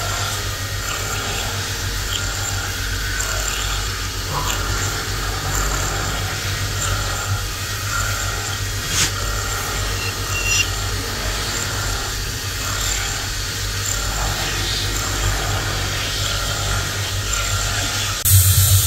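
CNC milling machine cutting a metal block under flood coolant: steady machining noise over a low hum, with a single sharp tick about halfway through. Near the end a louder hiss suddenly takes over.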